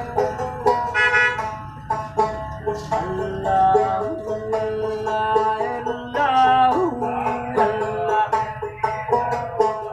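A street musician's plucked string instrument playing a melody of quick, short notes, with a few sliding notes about two-thirds of the way through.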